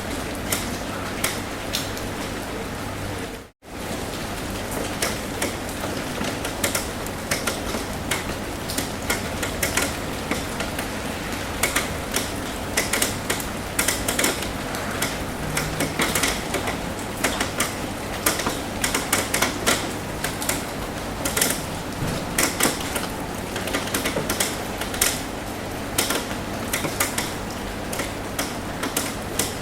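Rain on a metal roof: a steady patter with many irregular individual drops tapping, the taps growing denser after the first ten seconds or so. The sound cuts out briefly about three and a half seconds in.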